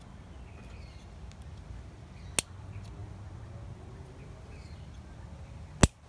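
Two sharp clicks from a Leatherman Wave Plus multitool as its folding tools snap into place, one a little before halfway and a louder one near the end. Under them is a steady low hum, with faint bird chirps.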